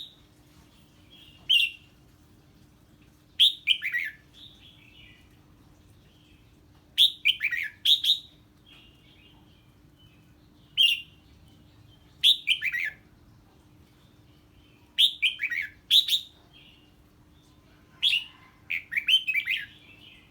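Red-whiskered bulbul singing the 'ché' song, an agitated reaction to an unfamiliar bird. It gives short, bright phrases every two to three seconds, each a quick run of notes sliding downward, over a faint steady hum.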